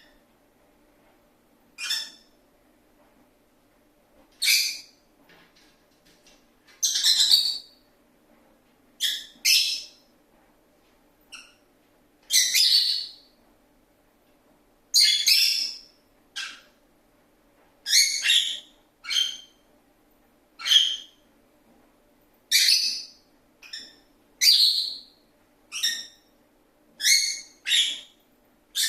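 Pet lovebird's shrill, high-pitched chirps: short sharp calls every second or two, some in quick pairs, over a faint steady hum.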